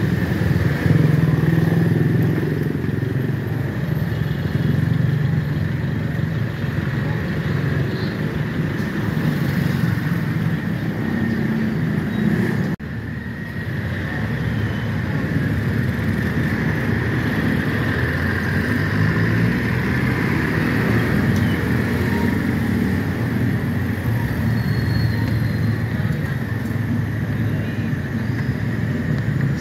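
Steady motor-vehicle traffic noise, engines and road rumble running continuously, with a brief dropout about 13 seconds in.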